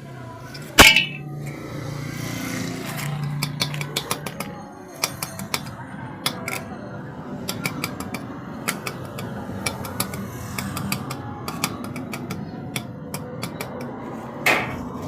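A sharp metallic knock, then a string of light, irregular clicks and clinks of metal being handled, with a short swish near the end.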